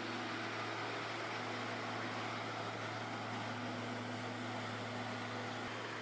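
Steady mechanical drone: a constant low hum under an even hiss, with no change in pitch or level.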